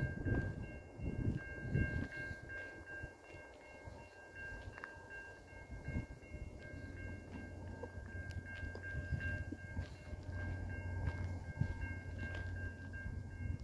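Level-crossing warning bell ringing steadily, with the low rumble of a freight train passing over the crossing. The rumble is heavy in the first couple of seconds, dies down, and gives way to a steady low hum from about halfway.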